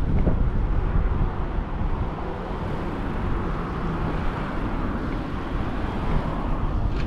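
Road traffic heard from a moving bicycle, with wind rumbling on the microphone and a steady hiss that swells in the middle.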